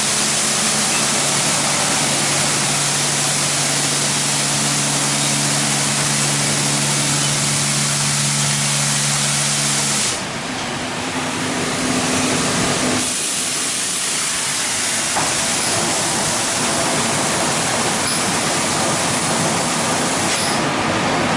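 WashTec SoftWash rollover car wash spraying water over a car: a loud, steady hiss of spray over the hum of its pump and gantry. About ten seconds in the hum cuts off and the level dips briefly, then the spray hiss carries on as the gantry travels.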